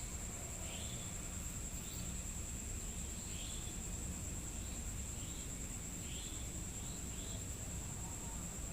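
Night insects, crickets, keeping up a steady high trill, with short chirps repeating about once a second over a low background rumble.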